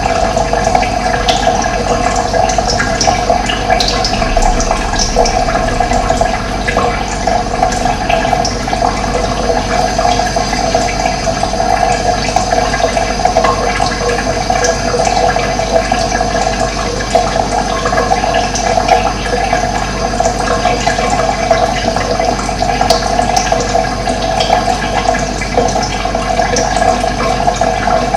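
Running water: a steady, unbroken rushing flow.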